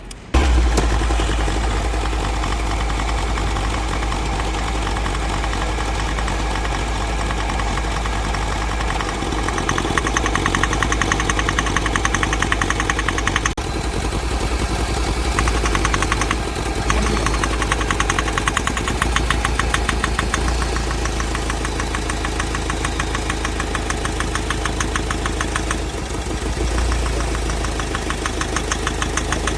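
Mahindra Scorpio mHawk four-cylinder common-rail diesel engine idling with a rapid, rhythmic 'tk tk' knock. The knock stops when cylinder 2's injector connector is unplugged, which the mechanic takes as a sign of a seized piston.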